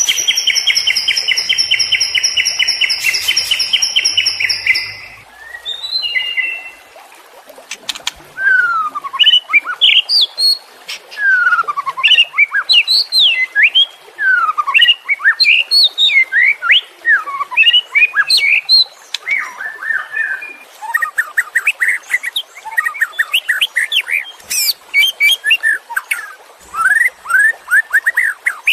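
White-rumped shama (murai batu) singing: a rapid buzzy trill for about the first five seconds, then a long run of varied whistled notes sweeping up and down in pitch, turning into fast repeated notes near the end.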